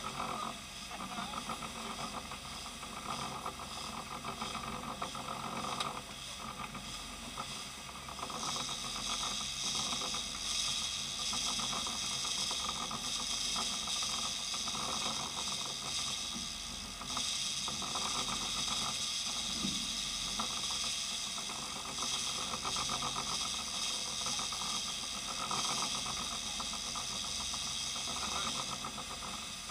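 Sport-fishing boat under way: its engines running steadily with the rush of the wake, overlaid by a hiss that grows louder about a third of the way in.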